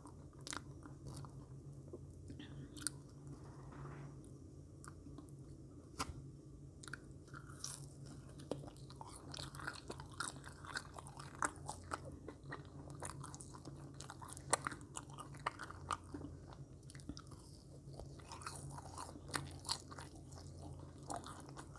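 Close-miked chewing of marshmallows: wet mouth sounds with many small clicks and smacks, irregular and spread throughout, over a low steady hum.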